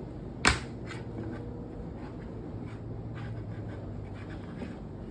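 A single sharp knock about half a second in, followed by faint clicks and scratchy rustling over a low steady hum.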